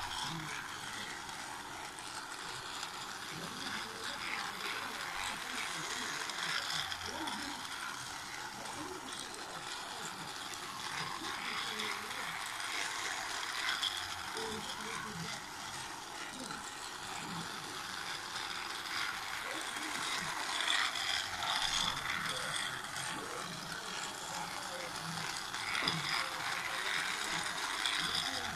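Toy train running laps on a plastic track: a steady whirring rattle of its small motor and gears, with many small clicks.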